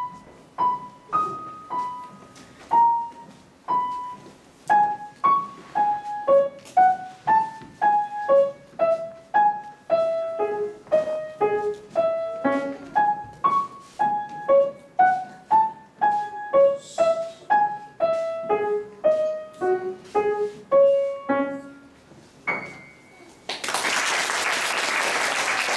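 Grand piano playing a simple melody of single short notes in the middle and upper register, one after another at an even pace, ending on a last note about 22 seconds in. Applause starts a second later.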